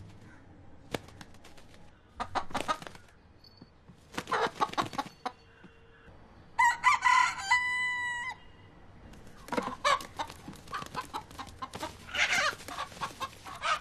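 Broiler-variety rooster giving several short bursts of clucking, and about seven seconds in one crow that ends in a held note lasting nearly a second.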